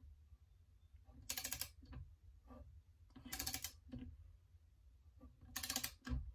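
Socket ratchet clicking in three short bursts about two seconds apart as it is worked back and forth, snugging down a rifle's action screw. A low thump near the end.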